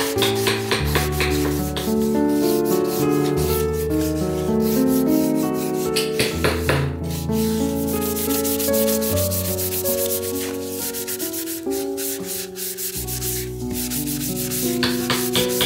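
Sandpaper rubbed by hand over cherry wood in short repeated strokes, hand-sanding the inside of a tray. Background music of held notes over a bass line plays under it.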